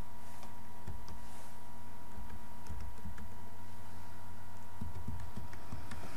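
Computer keyboard being typed on in short runs of keystrokes, entering a string of digits, over a steady electrical hum.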